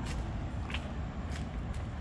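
Footsteps on a street pavement, a short tap roughly every half second to second, over a steady low rumble.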